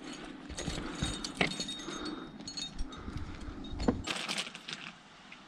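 Footsteps and trekking-pole clicks on loose rock with light clinking of metal gear, over gusty wind noise on the microphone that drops away about four seconds in.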